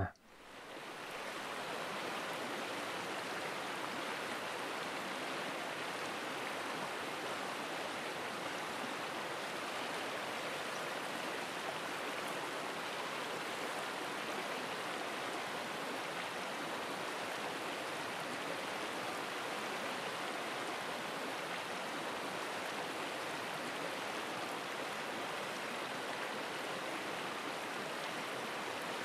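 Shallow mountain stream flowing and rippling over stones, a steady rush of water that fades in over the first second or so.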